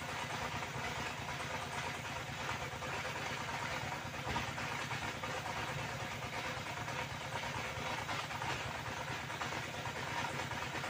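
Circular saw running steadily, fitted with a smaller blade whose teeth are worn thin.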